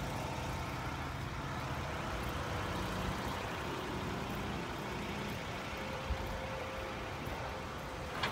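Steady engine noise with a low hum.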